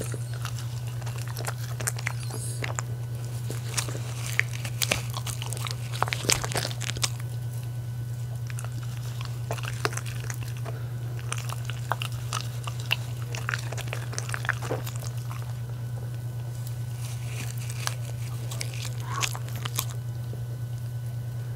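A miniature schnauzer and a West Highland white terrier biting and chewing pieces of soft cooked dog-food donut held out on a gloved hand, with many short, sharp clicks scattered throughout, over a steady low hum.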